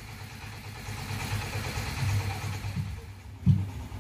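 A few low drum thumps played through a PA during a sound check, over a steady hiss: three in the second half, the last and loudest near the end.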